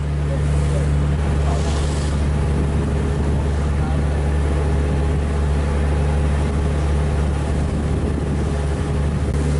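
Ferry under way: a steady low engine drone, with water rushing and churning along the hull.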